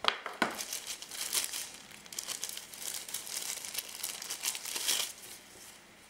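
Thin clear plastic bag crinkling and rustling irregularly as a smartwatch is worked out of it, stopping about a second before the end.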